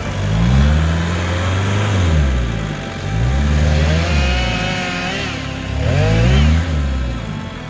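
Off-road 4x4's engine revving up and down repeatedly, in several surges of rising and falling pitch.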